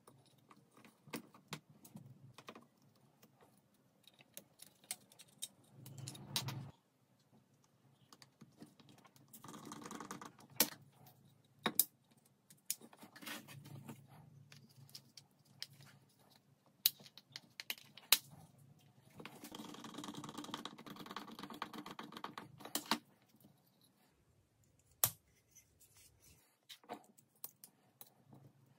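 Small workshop parts being handled: scattered sharp clicks and taps, with two stretches of a steadier, denser noise a few seconds long.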